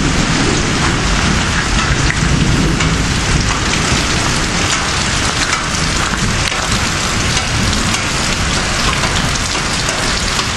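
Very heavy rain pouring down, a dense, steady hiss of rain hitting the ground and surroundings.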